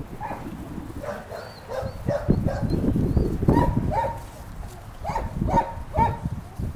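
Puppies yapping in short, high calls as they wrestle over a stick, a handful of quick yaps coming mostly in the second half.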